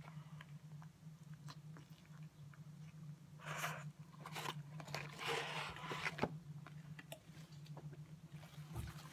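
A person chewing and biting into McDonald's food close to the microphone, with irregular wet crunches and smacks, over a steady low electrical hum.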